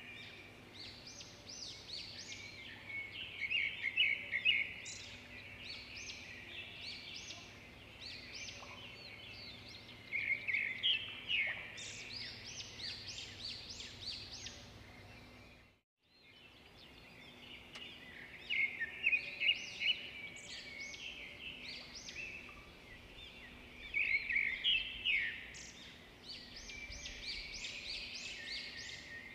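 Birds chirping in quick clusters of short, high notes over a faint steady hum. The sound cuts out for a moment about halfway through.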